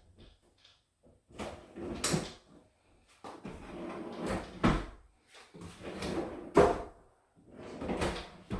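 Wooden closet organizer parts being handled: four sliding, scraping spells, most ending in a sharp knock, as of a drawer or panel being pushed and bumped into place.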